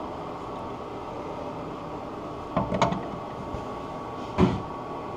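A few short clinks and knocks of hand tools working the toilet's tank-to-bowl bolts as they are tightened, a pair about halfway through and another near the end, over a steady low background hum.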